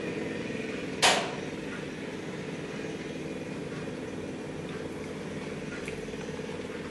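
A steady mechanical hum from a small motor starts up. A single sharp knock comes about a second in, and a few faint ticks follow later.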